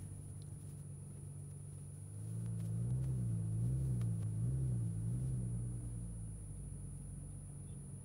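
Car engine running at low revs while driving, a low steady hum that swells and wavers up and down in pitch from about two to five seconds in, then settles back.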